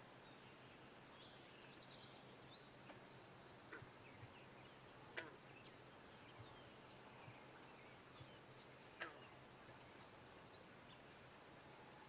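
Near-silent pond ambience with a few faint, short wildlife calls: a quick run of high chirps about two seconds in, then single sharp call notes around five and nine seconds.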